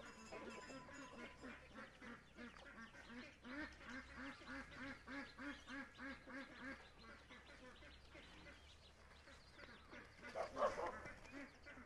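Farmyard poultry calling in a steady run of repeated short notes, about three a second, that stops partway through, followed near the end by a single louder call.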